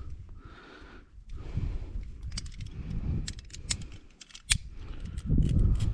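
Climbing hardware clinking: scattered short metallic clicks and jingles, with one sharp click about four and a half seconds in, over a low rumble that swells near the end.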